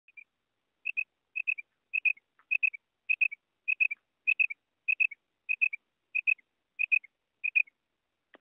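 Female common quail calling: a regular series of short, high, clipped notes in pairs or triplets, about one group every 0.6 seconds, repeated around a dozen times.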